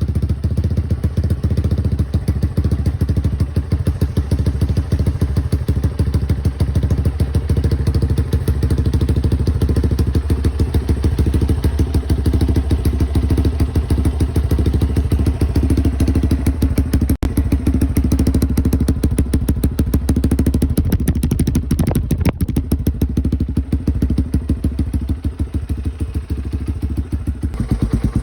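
Yamaha Raptor 350 quad's single-cylinder four-stroke engine running through an HMF aftermarket exhaust, a steady, fast train of exhaust pulses, shortly after a cold start.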